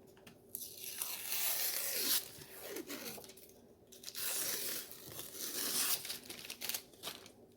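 Brown paper being torn and peeled off the baseboard of a button maker, in two long rips with shorter crinkling tears between and after.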